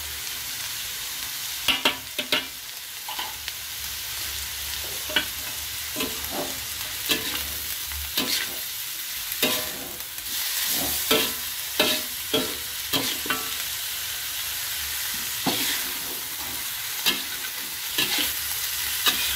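Shredded mackerel tuna and chillies sizzling in a metal wok, with a metal spatula stirring and scraping against the pan in irregular strokes, while the little water added cooks off.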